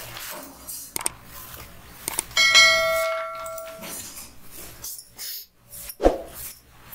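Subscribe-animation sound effect: a click, then a bright bell ding that rings out and fades over about a second and a half. A single sharp knock follows a few seconds later.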